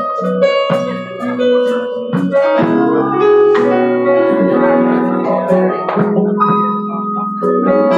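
Live band music led by an electric keyboard playing sustained chords, with guitar in the mix.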